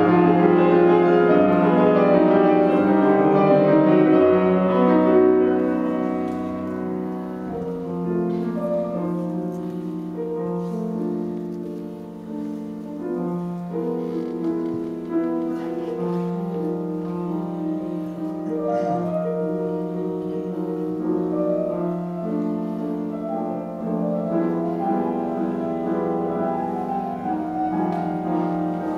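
Solo jazz piano played live on a Petrof grand piano, chords over a repeated low bass note. Loud for the first few seconds, then softer.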